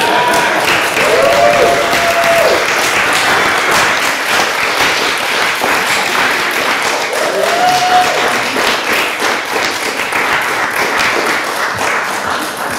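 Audience applauding steadily, with a few short cheers over the clapping.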